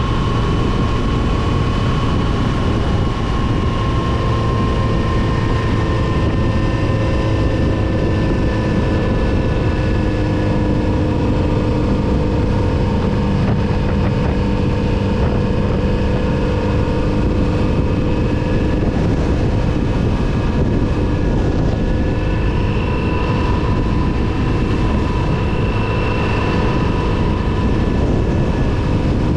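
Kawasaki Z900RS's inline-four engine running steadily under way, its pitch drifting slowly up and down with speed.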